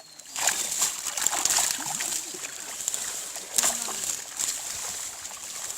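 Pond water splashing and sloshing in irregular bursts, starting suddenly just after the start.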